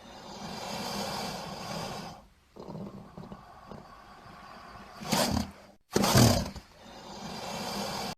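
Crocodile sound effect: long growling stretches, broken by two short, louder calls about five and six seconds in.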